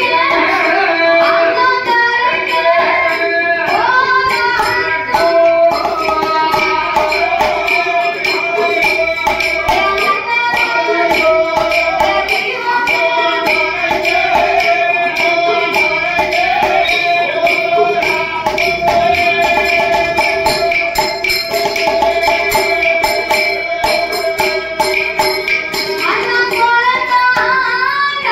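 Villu pattu bow-song music: a woman singing over fast, steady percussion.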